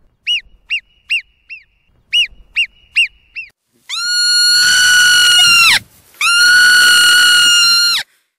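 Marmot whistling calls: two quick series of four short, high chirps, then two long whistles of nearly two seconds each, held at a steady pitch. These are the whistles marmots give when calling to each other or when alarmed.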